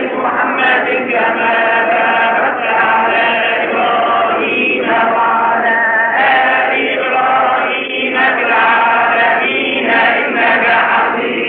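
Men's voices chanting a devotional melody together, long held notes broken by short pauses for breath.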